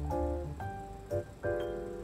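Light, cute background music: a bouncy tune of short separate notes over a low bass line.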